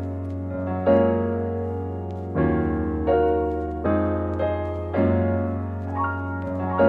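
Background music: soft keyboard chords struck about every second and a half over a steady low bass.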